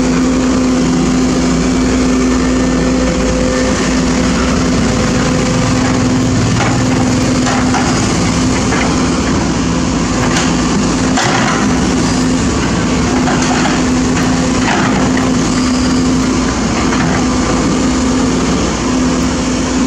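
Sumitomo SH210 hydraulic excavator's diesel engine running steadily under working load, with a strong steady hum. A few short knocks and scrapes come through as the bucket works the soil.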